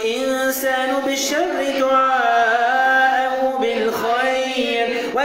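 A man chanting Quranic recitation in the melodic tajwid style, holding long, slowly gliding notes, with a brief pause about four seconds in.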